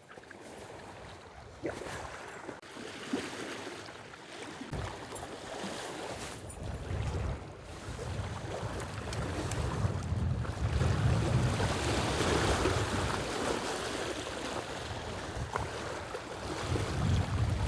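Strong wind buffeting the microphone in gusts, swelling about eight seconds in and again near the end, over the wash of wind-driven lake waves breaking along the shore.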